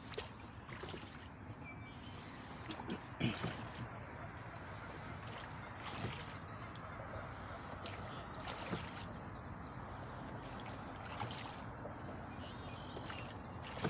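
Rowboat oars dipping and pulling through river water, a splash and dribble off the blades about every two and a half seconds, with a couple of dull knocks among the strokes.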